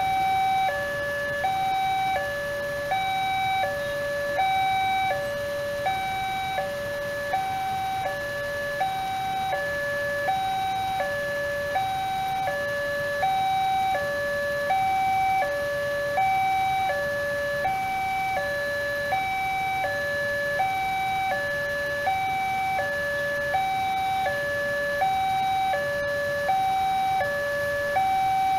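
Railway level-crossing warning alarm from the loudspeaker on the crossing signal: an electronic two-tone sound, a higher and a lower note alternating about every half second without a break. It signals that a train is approaching and the barrier is closed.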